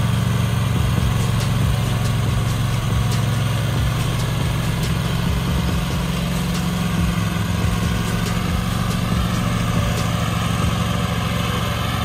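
Zero-turn riding lawn mower's engine running steadily under load as it cuts grass, growing slightly fainter as the mower moves away.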